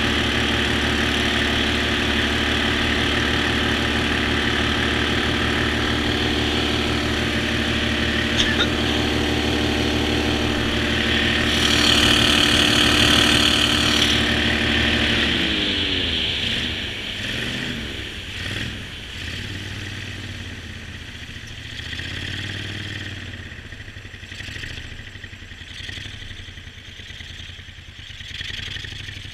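Jon boat's motor running steadily at high speed, then throttled back about halfway through, its pitch falling away. It runs on at low speed with a wavering note to the end.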